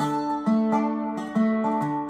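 Guitar playing an instrumental passage: plucked low notes on a steady beat, about two a second, under ringing higher notes that fade between strokes.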